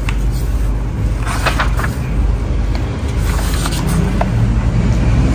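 Laundry machines running with a steady low rumble and hum that grows a little louder near the end. There are a few light rustles and taps as a hardback book is opened and its pages handled.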